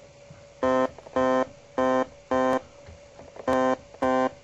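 Roland Juno-106 in its voice test mode, playing the same short synth note about twice a second as it steps from voice to voice. One step in the cycle stays silent: that is the voice whose 80017A voice chip has died, which is chip number 1.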